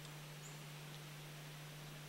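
Quiet outdoor stillness: a steady low hum and faint hiss, with two or three faint, very short high chirps.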